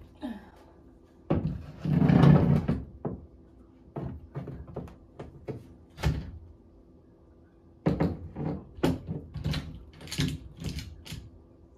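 A large framed painting being lifted and hung on a wall: a loud scrape about two seconds in, then a run of knocks and taps as the frame bumps against the wall and is settled into place.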